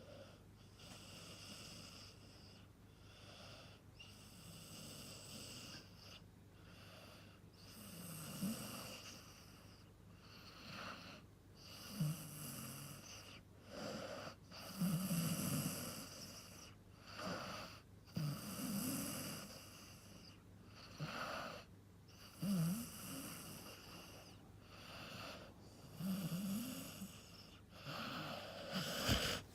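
Six-month-old golden retriever puppy snoring in deep sleep, with a rasping snore on each breath about every three to four seconds. The snores get louder from about eight seconds in.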